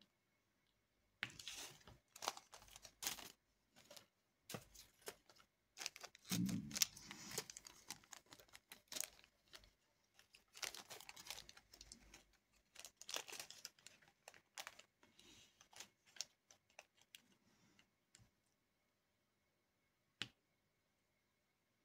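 Faint clicking and rattling of small plastic diamond-painting drills, stirred in a plastic drill tray and picked up and tapped onto the canvas with a drill pen, with a soft thump about six seconds in. The clicks fall silent near the end apart from one last click.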